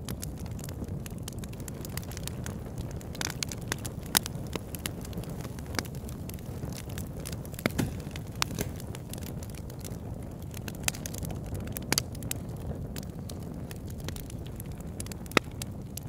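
Wood fire burning: a steady low rush of flames with irregular sharp crackles and pops, the loudest about four seconds in and again near the end.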